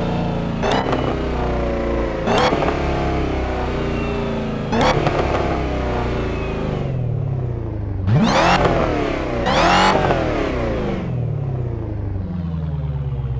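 Car engine revving hard through its exhaust, the pitch climbing and dropping repeatedly, with about five sharp cracks on the revs. Near the end it falls back to a lower, steady running.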